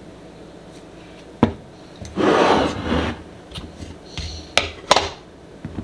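Handling a plastic baby bottle and a glass jar of powdered formula on a counter while making up a bottle: a single knock, then a scraping, rubbing sound lasting about a second, then two sharp clicks near the end.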